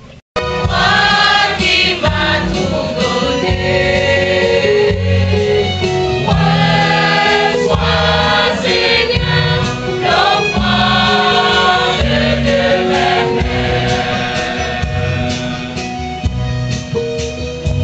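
Church choir of mixed men's and women's voices singing a hymn; it comes in abruptly just after the start.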